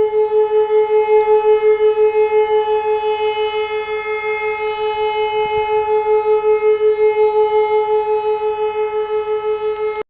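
Alarm sounding: one high, unchanging pitch that pulses rapidly, several beats a second, and cuts off abruptly near the end.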